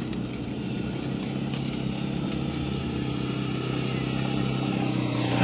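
A motor vehicle's engine running at a steady pitch, heard from inside a car's cabin while driving on a dirt road, slowly getting louder.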